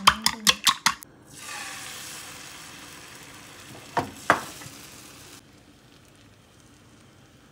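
Quick run of sharp utensil clicks against a bowl or dish, then food sizzling in a hot frying pan. The sizzle starts suddenly about a second in, fades slowly, has two clinks in it, and cuts off after a few seconds.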